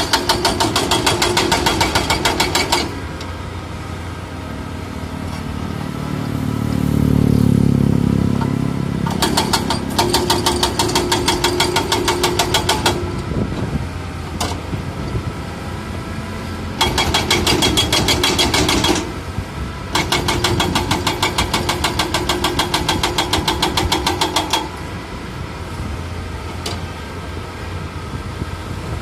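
Heavy excavator's diesel engine running, with several stretches of rapid, even knocking lasting a few seconds each, and the engine swelling louder for a couple of seconds about seven seconds in.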